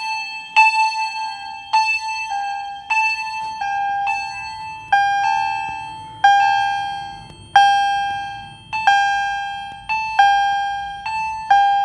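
Fire alarm chime strobes sounding: electronic chime strikes that ring and die away, repeating about every second and more, at two slightly different pitches out of step with each other. The loudest is a Honeywell-branded Wheelock chime strobe with its pitch adjusted.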